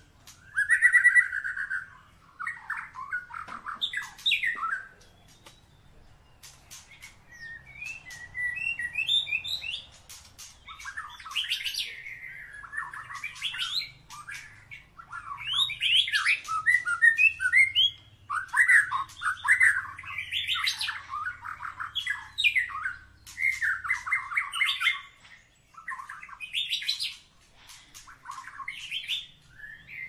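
White-rumped shama (murai batu) singing a varied run of phrases: fast trills, sliding notes and quick strings of repeated notes, broken by a few short pauses.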